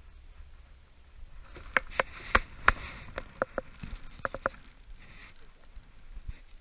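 Hollow knocks and clatters on a metal canoe: about a dozen irregular strikes, each with a short ring, bunched between about two and four and a half seconds in. The loudest come about two and a half seconds in.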